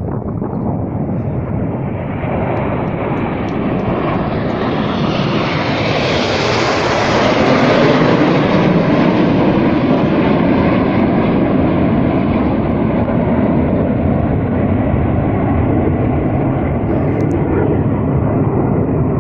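Formation of BAe Hawk jets with Adour turbofan engines flying past: a loud rushing jet roar that builds to a peak about seven seconds in, then slowly fades.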